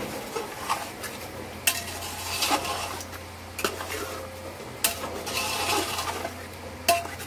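A metal spoon stirring chicken pieces through thick masala in an aluminium pot, scraping along the pot and knocking against its side with sharp clinks every second or two.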